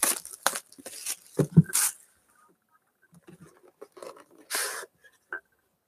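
A sealed box of Panini football cards being opened and handled: light taps and rustles of cardboard and packaging, with a short ripping sound about four and a half seconds in.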